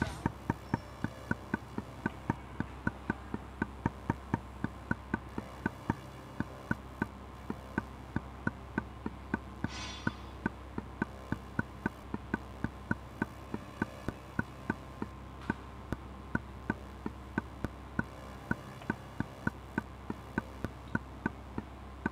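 Steady, evenly spaced ticking, about three ticks a second, over a low steady hum, with a brief soft hiss about ten seconds in.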